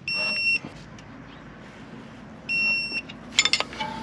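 Digital torque wrench beeping twice, each a steady half-second tone, a signal that the set torque of 35 newton-metres on the brake caliper bolts has been reached. A brief clatter of metal tools follows near the end.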